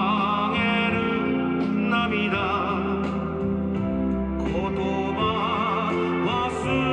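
Slow music: a melody in long held notes with vibrato over sustained low chords.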